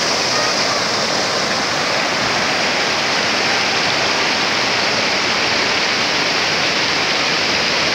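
Fast mountain river rushing over rocks in white-water rapids, a loud, steady rush of water.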